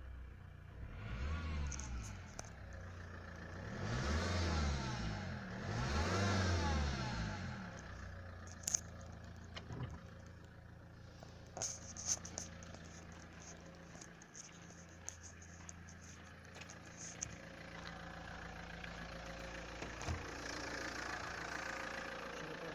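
Vectra car engine blipped three times, rising and falling in pitch, then settling to a steady idle with a few sharp isolated clicks. This is the strange noise from near the crankshaft damper that the owner is trying to find.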